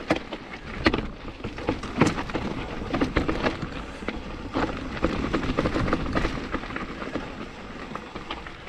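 Mountain bike rolling over rocky trail: tyres crunching over rock, with irregular sharp knocks and rattles from the bike over a steady hiss.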